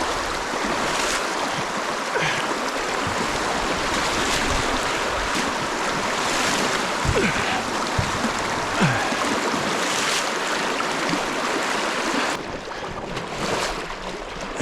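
Rushing water of a river running through rapids, with brighter splashing swells every couple of seconds. The rush drops and thins abruptly about twelve seconds in.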